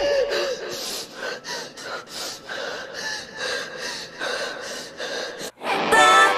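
A woman crying in short, ragged gasping breaths, about three a second. A sharp cut about a second before the end brings in a pop song with singing.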